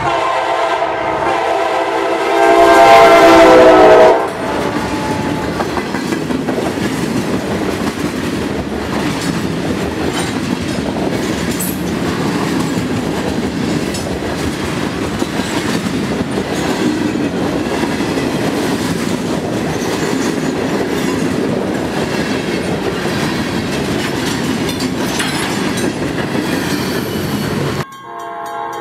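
CSX freight locomotive's multi-note air horn sounding one long blast as it passes close by, loudest just before it cuts off about four seconds in. Then the train's autorack cars roll past with a steady rumble and wheels clacking over rail joints. The sound breaks off abruptly near the end.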